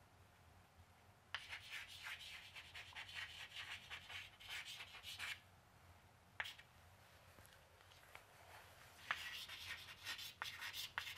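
Chalk scratching and rubbing on a chalkboard as words are written, in two spells with a pause between them and a single sharp tap in the pause.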